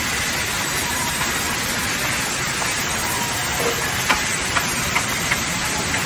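Band sawmill running steadily as its blade saws lengthwise through a log, a continuous machine noise with a faint high whine. Several sharp clicks come through in the second half.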